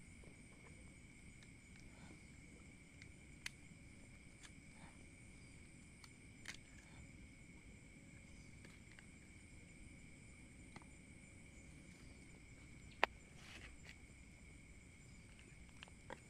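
Near silence with a faint, steady high chirring of night insects, broken by a few short sharp clicks, the loudest about 13 seconds in.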